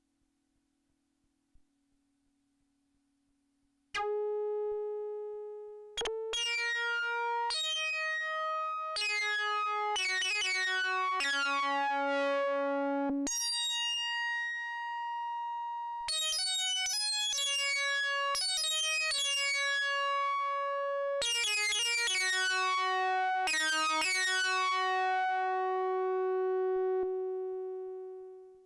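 Korg ARP Odyssey analogue synthesizer playing a series of held notes at changing pitches, bright with overtones, starting about four seconds in. The last note fades out near the end.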